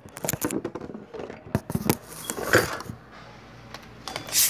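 Irregular clicks, knocks and rustles of a large plastic drink jug being handled, with a louder scraping rustle near the end as a hand works at its cap.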